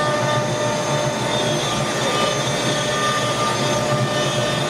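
Dust collection system running steadily, air rushing through a flexible hose with a steady machine whine over it.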